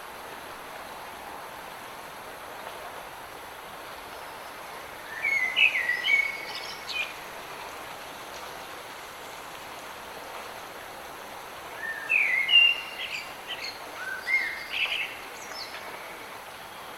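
A songbird sings two phrases of quick chirping notes, about five seconds apart, over a steady hiss of rain.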